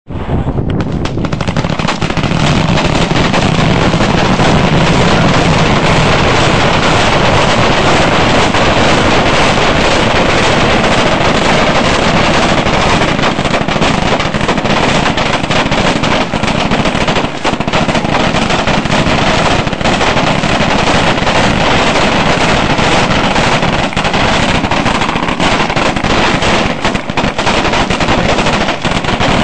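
Massed gunfire from a line of soldiers' rifles firing together: a loud, dense stream of overlapping shots with no break.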